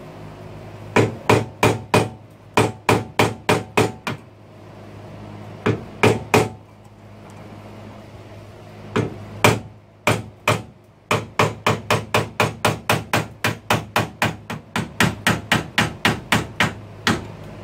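Hammer tapping a screwdriver set in a notch of the ignition switch's retaining ring, driving the ring round to loosen it. The taps come in quick runs of about three or four a second with short pauses between, the longest run near the end.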